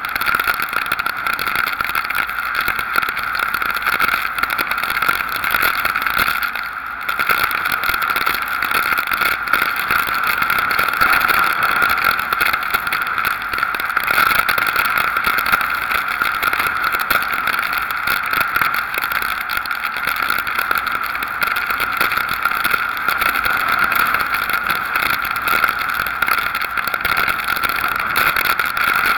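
Steady rush of hurricane wind and driving rain on a camera mounted outside a moving pickup truck, with no let-up except a brief dip about seven seconds in.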